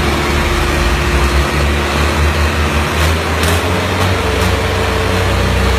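Tractor diesel engine running hard and steadily, its pitch stepping up slightly about halfway through.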